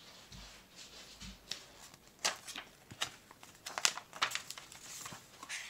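A picture book's paper pages being handled and turned by hand: a series of short, papery rustles and flicks.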